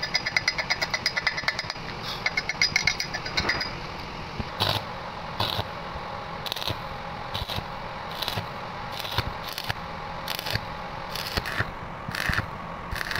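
Rapid sharp metallic tapping on a fresh weld bead for about the first three and a half seconds. Then a stick (arc) welding rod crackles and sputters with irregular loud pops as it welds a threaded pipe nipple onto a steel water pipe.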